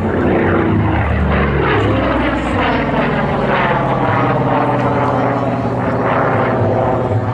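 A Goodyear FG-1 Corsair's Pratt & Whitney R-2800 radial engine and propeller run loud and steady as the fighter flies by overhead, the engine note sliding down in pitch as it passes.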